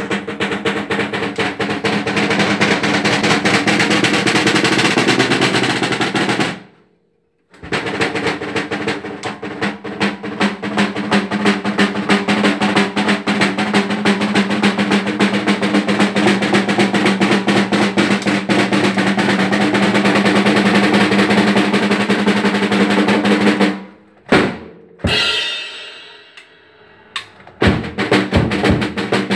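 Drum kit played in fast, continuous snare rolls with tom and bass drum strokes under them, with a brief full stop about seven seconds in. Near the end the roll breaks into a few separate hits and a ringing crash, then the playing picks up again.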